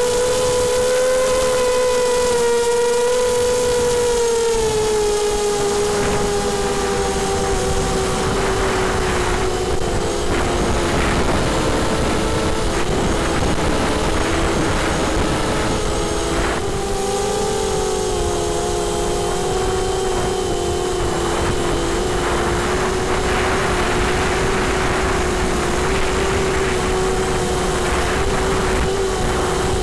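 Multirotor drone's electric motors and propellers whining, heard close up from the drone's onboard camera over a hiss of rushing air. The whine sinks in pitch over the first several seconds, then wavers as two close tones.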